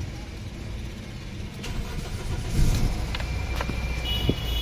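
Four-cylinder Toyota Corolla petrol engine running rough with a misfire, from a faulty No. 2 ignition coil, with a low rumble that grows stronger near the end. A few short knocks are heard over it.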